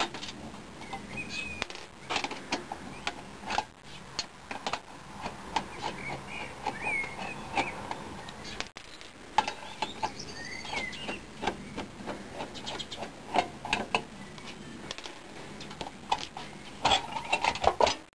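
Screwdriver taking small screws out of the thin sheet-metal shield on the back of an LCD monitor panel: light metallic clicks and ticks. About a second before the end, a quick run of louder clicks and rattles as the metal shield is lifted off.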